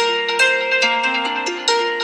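iPhone ringtone: a melody of quick, bright, plucked-sounding synthesized notes, about four a second, each starting sharply and ringing on.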